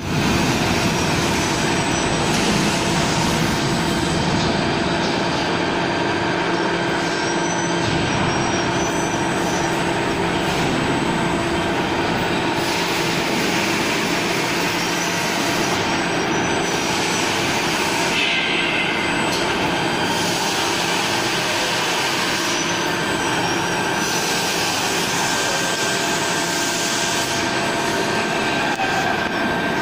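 Steady factory machinery noise: a continuous mechanical hum and hiss with several steady tones, unchanged in level throughout, with a few faint high chirps now and then.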